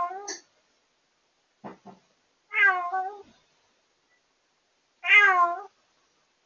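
A rescued former stray cat crying at night: three long meows about two and a half seconds apart, with two short low sounds between the first two.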